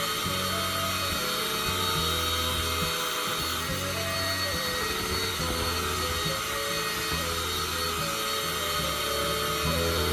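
Background music of slow, low held notes that change in steps, over a steady hiss.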